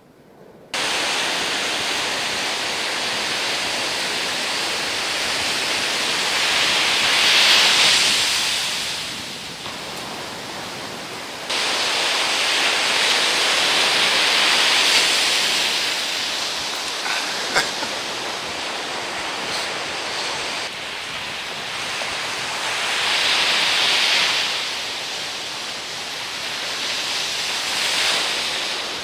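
Ocean surf breaking and washing up a sandy beach, a steady rush that swells and fades every several seconds as waves come in.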